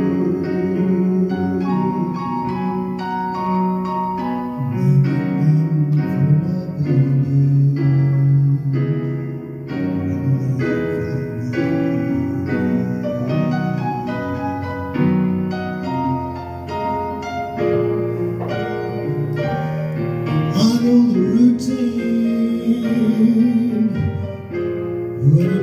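A man singing into a microphone over a backing track of keyboard or piano notes, heard through a PA, with a wavering held note near the end.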